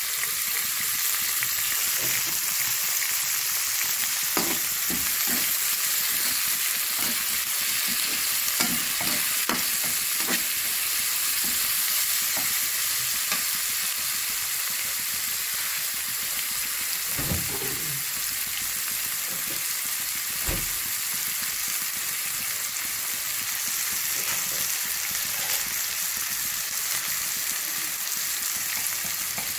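Sliced onions and curry leaves sizzling in hot oil in a pan, a steady hiss, stirred with a black slotted spoon that scrapes and knocks against the pan now and then.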